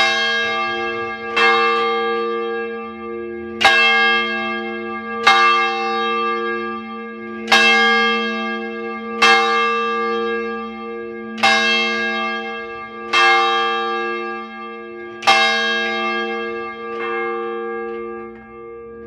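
A single church bell ringing: about nine strokes, roughly two seconds apart, each ringing on into the next over a steady hum. The strokes stop about three-quarters of the way through and the tone fades away.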